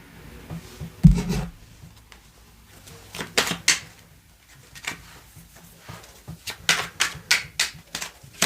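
Tarot cards being handled and shuffled: a run of short sharp taps and clicks, with a heavier knock against the table about a second in and quicker taps near the end.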